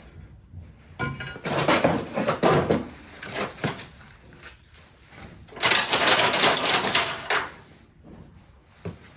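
Rummaging and clattering through small metal parts in a workshop, in two bouts of about two seconds each with quieter handling between, as small parts are searched through.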